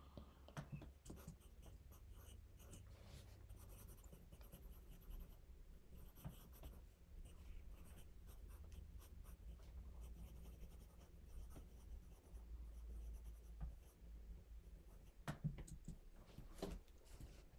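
Faint pencil scratching on notebook paper as a child writes, in short irregular strokes over a low steady room hum, with a couple of soft knocks near the end.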